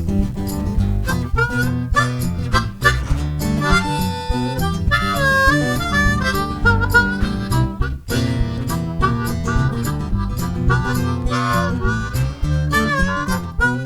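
Harmonica solo with bending, wavering notes over a strummed acoustic guitar, in an instrumental break of a folk song.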